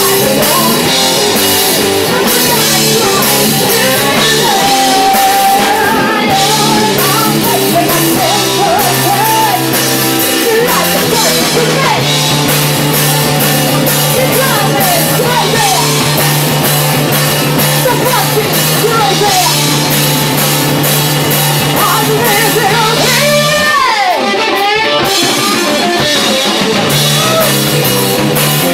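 Live rock band playing loud: electric guitars, bass and drum kit, with a woman singing.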